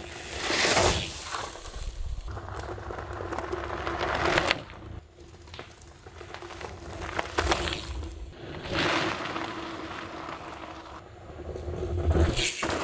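Gravel bike tyres crunching over dry leaves and dirt on a forest singletrack, rising and falling in several swells as the bike rolls past close to the ground.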